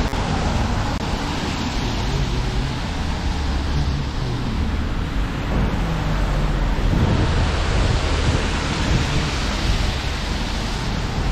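Rainy city street ambience: a steady hiss of rain and wet road over a low rumble of traffic.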